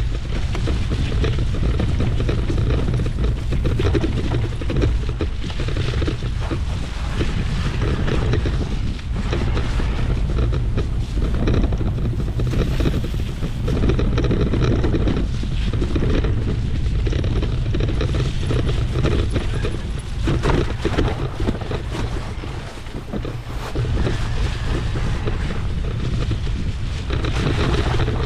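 Wind buffeting the microphone in a steady low rumble over the tyre noise of a Trek Powerfly 4 electric mountain bike riding downhill on a rough trail, with frequent knocks and rattles from the bike.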